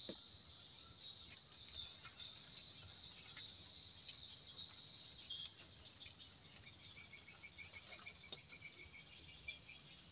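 Faint, steady high-pitched insect chirring, joined about two-thirds of the way through by a rapid, even run of chirps at about six a second.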